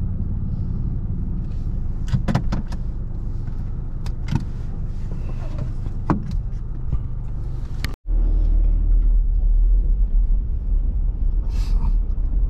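Car driving, heard from inside: a steady low engine and road rumble with a few sharp clicks. About two-thirds of the way through the sound cuts out for an instant, and the rumble comes back louder and deeper.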